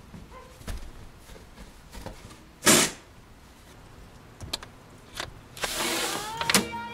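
A few light knocks and one short, loud burst of noise about two and a half seconds in. Near the end a sash window is pushed up, sliding with a rising squeak and stopping with a clunk.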